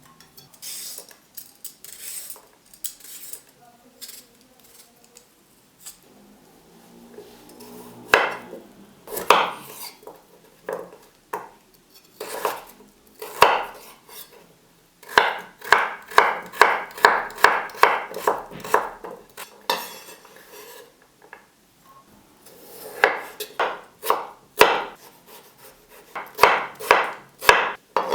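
Kitchen food-preparation sounds: dishes and utensils clinking and knocks on wood, with a run of quick, even strokes, about three a second, in the middle.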